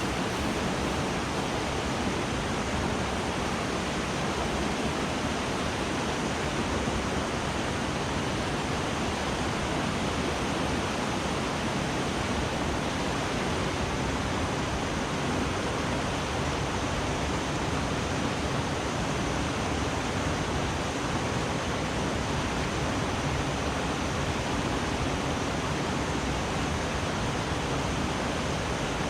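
Mountain stream rushing over rocks in a steady, unbroken roar of water.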